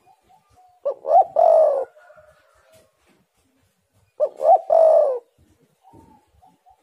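Spotted dove cooing: two three-note calls about three seconds apart, each two short coos followed by a longer coo that falls in pitch.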